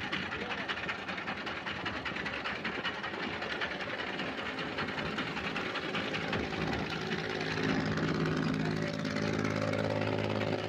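A boat's Yanmar three-cylinder engine running steadily as the boat passes close by, its drone coming up over the second half and growing louder. Underneath is a constant rushing noise of wind and water.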